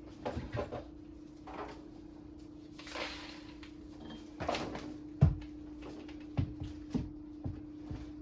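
Scattered knocks and clunks of things being handled, with a heavier thump about five seconds in, over a steady low hum.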